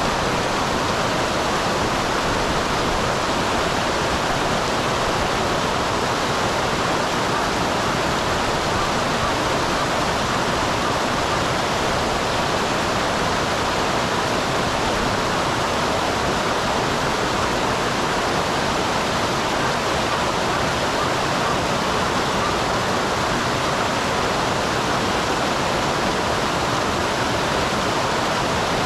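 A small waterfall on a mountain stream rushing steadily, a dense even splashing hiss of falling water without any breaks.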